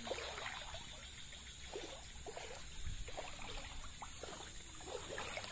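Shallow floodwater flowing and trickling, with faint scattered gurgles.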